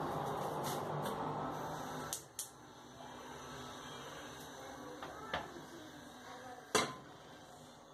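A steady rushing noise that stops about two seconds in, then sharp clicks as a gas hob burner is lit, and a metal saucepan set down on the hob's pan support with one clank near the end.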